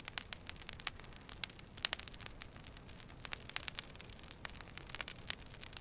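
Crackling wood fire: irregular sharp pops and snaps over a soft steady hiss.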